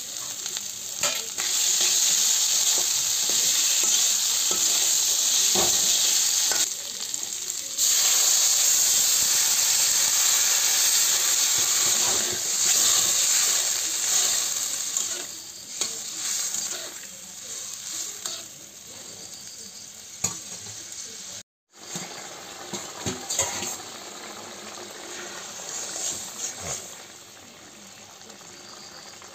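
Potato and spiny gourd curry with spices frying in oil in a pan, sizzling as it is stirred. The sizzle is loudest in the first half and quieter from about halfway, with a short break about two-thirds of the way through.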